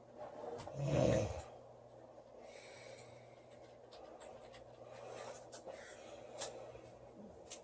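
A sleeping woman's snore ending about a second and a half in, followed by soft breathing. A low steady hum and a few faint clicks run underneath.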